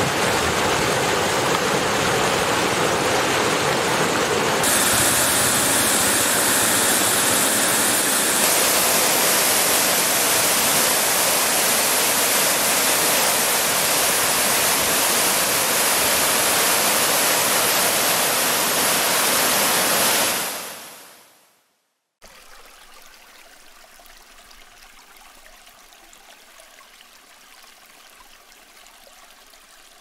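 Waterfall water rushing over rock: a loud, steady rushing noise that fades out about two-thirds of the way through. After a moment of silence, a much quieter, steady trickle of shallow water.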